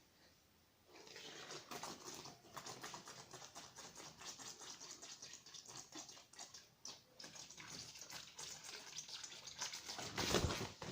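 Rustling paper crackling irregularly as a cat plays with it, starting about a second in and growing louder near the end.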